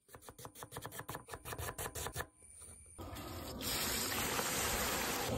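Kitchen knife chopping an onion on a wooden board, a quick run of sharp strokes for about two seconds. After a short pause, hot oil in a steel wok starts sizzling steadily as green chillies and leaves fry, growing louder about half a second later.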